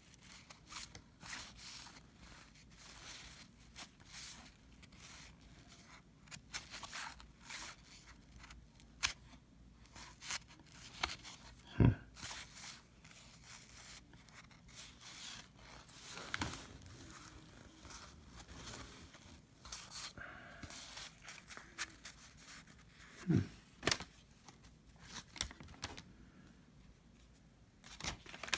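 Paper-and-card handling noise from 1990 Fleer basketball cards being sorted through: soft rustling, sliding and small clicks, with three sharper knocks spread through.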